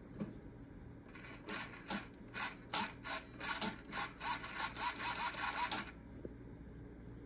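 Traxxas 1/16 E-Revo VXL's brushless motor and drivetrain spinning the raised wheels in a quick series of throttle blips: about a dozen short bursts, two to three a second, starting about a second in and stopping about six seconds in. The later bursts carry a short rising whine.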